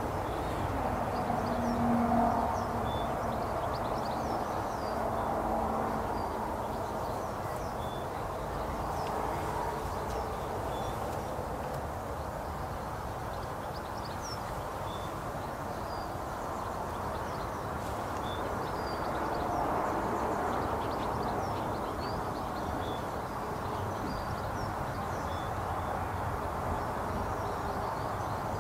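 Faint, scattered chirps of small birds over a steady, even outdoor background noise.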